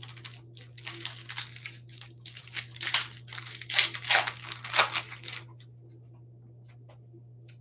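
Foil wrapper of a 2021 Bowman 1st Edition baseball card pack crinkling and tearing as it is ripped open by hand: a run of crackles for about five seconds that stops once the cards are out.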